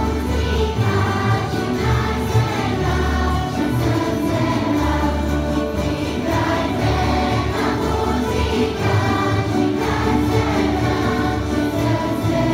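A large children's choir singing a Croatian folk song, accompanied by a tamburitza string orchestra.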